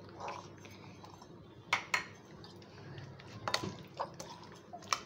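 Spoon mixing yogurt-marinated chicken in a glass bowl: soft wet squelching, with several sharp clinks of the spoon against the glass.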